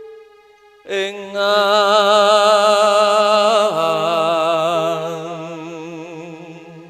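Male vocalist singing a Javanese opening song, holding a long note with strong vibrato over sustained instrumental tones. About a second in the voice comes in strongly, the pitch drops about four seconds in, and the note slowly fades.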